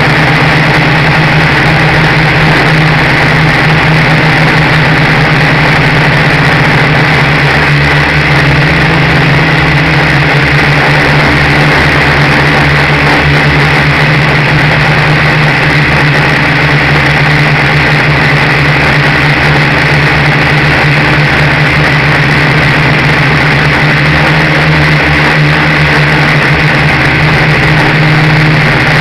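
Dromida Ominus quadcopter's electric motors and propellers running steadily, a loud close-up buzz picked up by the camera riding on the craft.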